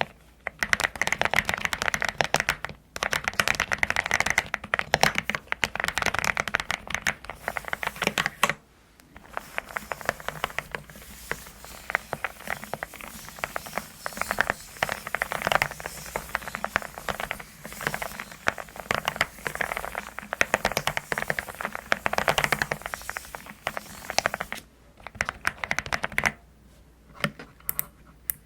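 Typing on a custom mechanical keyboard with a rounded, pebble-like 'dogak-dogak' clack: dense runs of fast keystrokes, broken by short pauses about 3 and 9 seconds in and a longer pause near the end.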